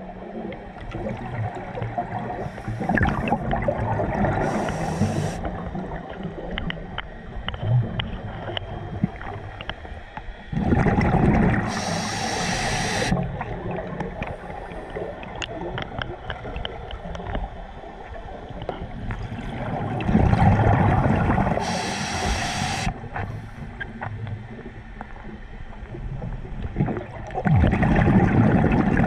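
A scuba diver's breathing recorded underwater: exhaled air bubbles out in a gurgling, hissing burst about every eight seconds, four times, over a steady low rumble.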